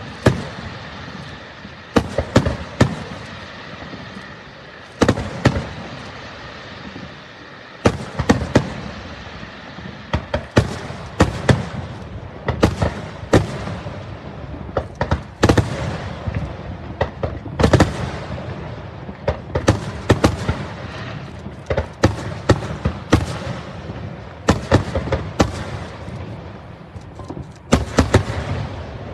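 Aerial firework shells bursting in an irregular volley of sharp bangs, a few seconds apart at first and then coming thick and fast, with a steady noise between the reports.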